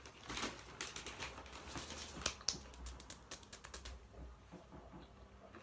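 Plastic crisp packet of McCoys tortilla chips crinkling as it is handled: a dense run of light, irregular crackles that thin out after about four seconds.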